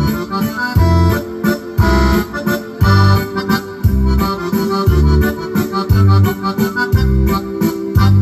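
Yamaha DGX670 digital piano playing its sampled accordion voice: a French musette waltz melody over the keyboard's auto-accompaniment. A bass note falls on each downbeat about once a second, under chords and a light drum pattern.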